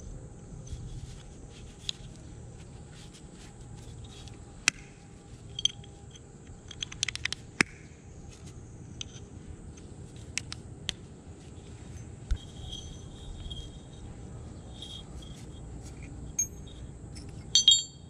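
Steel pliers and tool tips clicking and scraping against a rusty knife blade and an old iron hammer head, in scattered sharp metallic clinks with a quick run of clicks about seven seconds in and the loudest just before the end.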